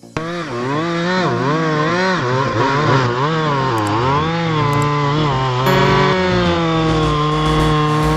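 Chainsaw engine starting suddenly and revving up and down repeatedly for about five seconds, then running at a steadier high speed.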